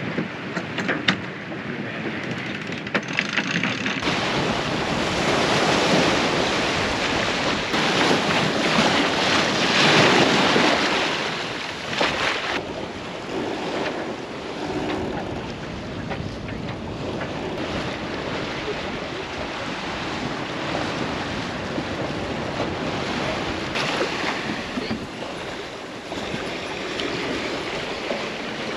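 Sea water rushing and splashing along the hull of a sailboat under sail, with wind buffeting the microphone. It swells about six seconds in and eases after about eleven seconds.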